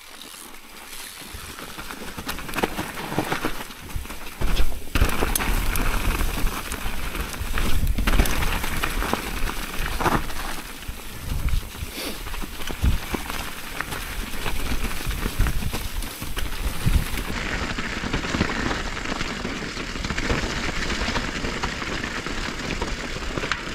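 Mountain bike rolling down a forest trail: tyres crackling over leaf litter, dirt and stones, with knocks and rattle from the bike over bumps.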